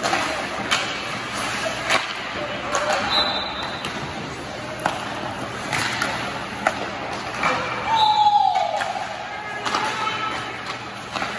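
Ice hockey pucks being struck by sticks and clacking off sticks and the boards in an echoing rink, a sharp knock every second or so at uneven intervals, with skate blades scraping the ice. A voice calls out about eight seconds in.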